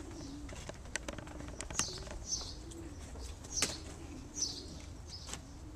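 Racing pigeons cooing in a loft: short low coos repeating about once a second, with scattered sharp clicks and brief high chirps among them.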